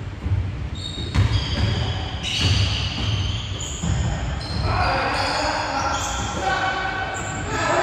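Basketball dribbling on a hardwood gym floor, with repeated thuds, while sneakers squeak in short high bursts and players call out.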